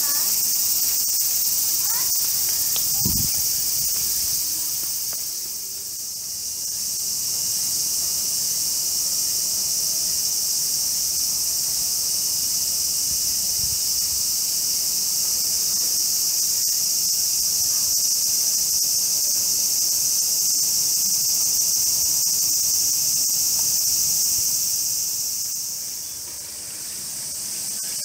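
A dense chorus of cicadas: a loud, steady, high-pitched buzzing that eases off briefly about six seconds in and again near the end.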